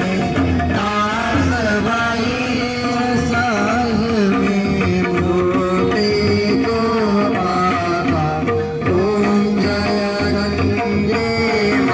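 Indian devotional music: a voice singing a winding melody over instrumental accompaniment, without a break.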